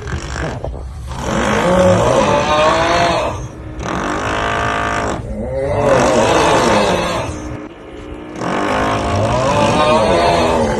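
A person snoring loudly: three long snores about three and a half seconds apart, each sliding up and then down in pitch.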